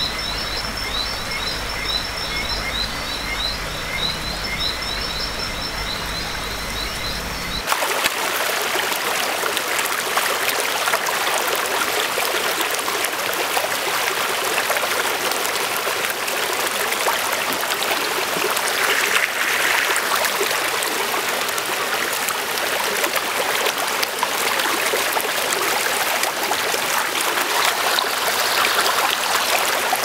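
Frogs calling at night in rapid, repeated chirps. About eight seconds in, this cuts abruptly to water running and trickling over rocks in a shallow stream, a steady rushing that lasts to the end.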